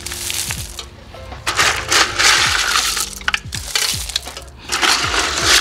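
Handfuls of washed gravel crunching and rattling as they are dropped and spread by gloved hands among stones in an orchid bed, in several bursts with sharp clicks of stone on stone.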